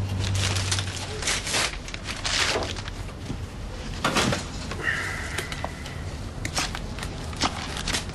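Paper packet crinkling and rustling as it is handled, in a run of short scrapes, with a brief faint high tone about five seconds in.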